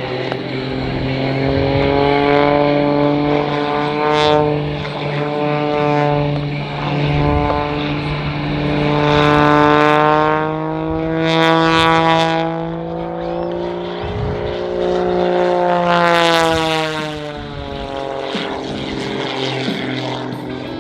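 Aerobatic stunt biplane's piston engine and propeller during an aerobatic routine. The pitch keeps rising and falling as the plane climbs, dives and makes several swooping passes, with a long falling sweep as it goes by.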